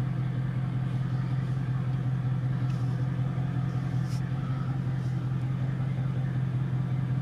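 2020 Dodge Charger Widebody's V8 engine running at low speed with a steady, even low drone as the car creeps forward.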